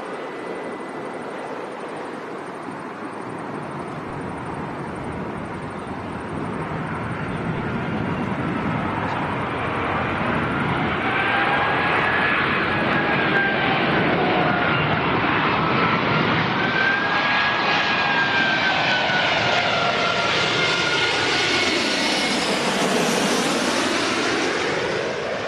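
Airbus A380's four jet engines whining and rumbling on its arrival approach, growing louder over the first half and staying loud. The pitch of the engine whine wavers up and down, and the tone sweeps near the end as the aircraft passes.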